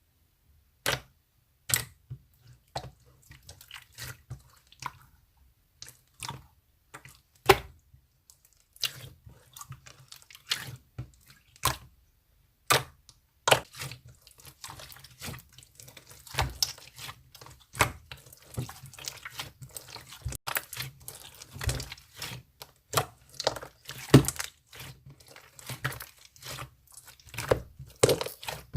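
A run of irregular sharp taps and clicks, some much louder than others, coming more thickly in the second half, with soft handling noise between them.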